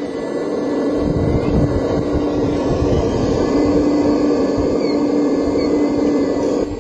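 Radio-controlled hydraulic excavator model digging in sand, its hydraulic pump running with a steady hum. A low rumble joins in from about a second in.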